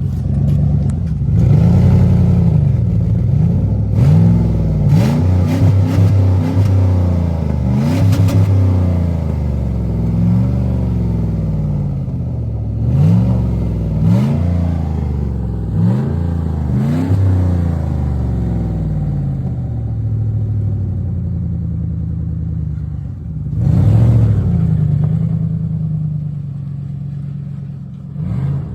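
1999 Lincoln Continental's 4.6-litre V8 on its stock exhaust, revved in a string of quick blips through the first two-thirds, then settling to a steady idle with one more rev near the end. The exhaust leaks on it have been only partly repaired.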